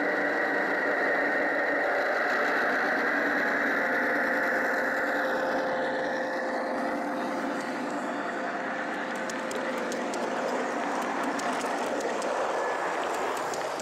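Gauge 1 model train running on the layout, a steady mechanical hum with several held tones. In the second half come a run of light clicks.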